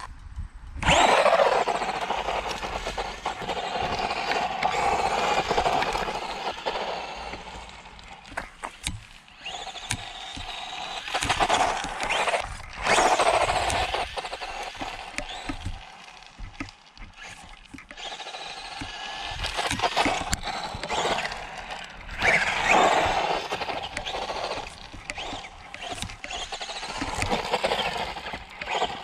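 Tamiya DT-01 RC buggy's brushed Silver Can 540 motor and gearbox whining in repeated bursts, the pitch rising and falling as the car speeds up and slows.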